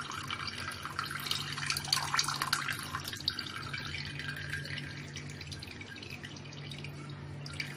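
Whey dripping and trickling into a pot of whey from a cloth bundle of freshly curdled chhena being squeezed gently by hand. The patter is busiest for the first few seconds and then thins out.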